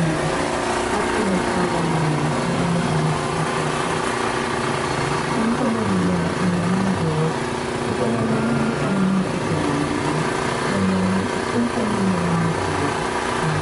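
Motor vehicle engine running at low speed, its pitch rising and falling as the vehicle creeps along.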